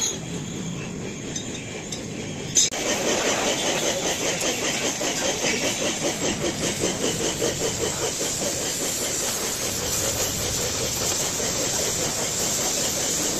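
Oxy-fuel gas welding torch flame hissing steadily while it brazes a copper earth plate with a filler rod. It starts abruptly a few seconds in after a quieter stretch, and its steady hiss pulses about twice a second.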